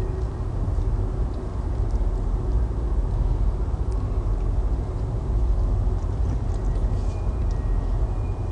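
Steady low rumble of a loaded inland container barge passing close by under power.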